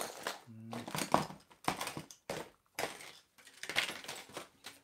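Hands rummaging through fishing tackle: crinkling, rustling packaging and small items knocking, in many short irregular bursts while searching for a spinner lure. A short murmured hum about half a second in.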